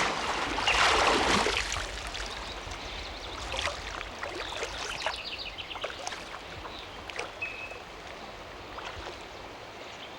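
Loud splash of river water as a man is dipped under and lifted back out in baptism by immersion, then smaller splashes and drips as the water settles. Birds chirp in the background.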